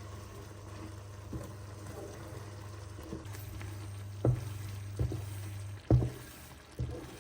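Kitchen cooking sounds: a faint sizzling hiss over a steady low hum, with about six sharp knocks of a utensil against a pan, the loudest about four and six seconds in.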